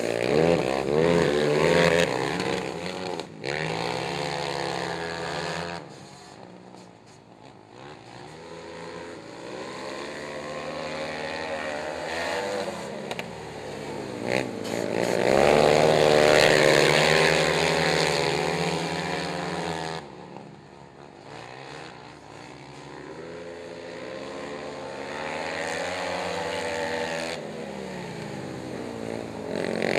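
Several racing quad ATVs' engines revving through the turns of a dirt oval, their pitch rising and falling as they accelerate and back off. The sound swells and fades as the pack passes, loudest a little past the middle and quieter for a few seconds about a quarter of the way in.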